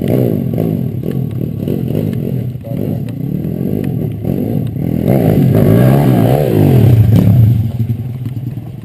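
Small motorcycle engine revving up and down over and over as the bike is ridden, loudest in the second half.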